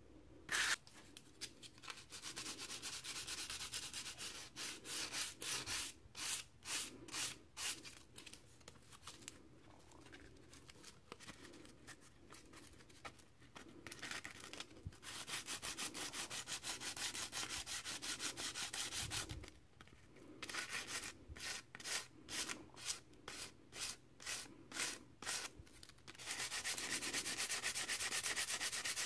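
A split turkey feather quill being hand-sanded on a sheet of sandpaper to thin it for arrow fletching: scratchy back-and-forth strokes, at times separate at about two a second, at times quick and near-continuous, loudest near the end.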